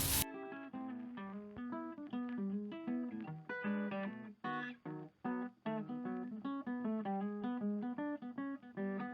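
Background music: a guitar picking out a melody in separate plucked notes, which starts abruptly just after the start.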